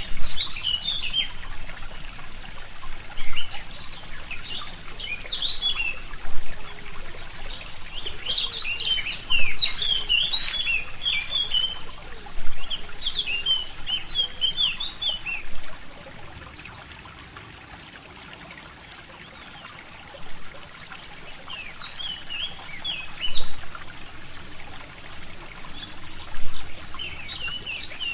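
Forest songbirds singing in short, quick twittering phrases over the steady trickle of a small brook. The water sound dips quieter for a few seconds past the middle.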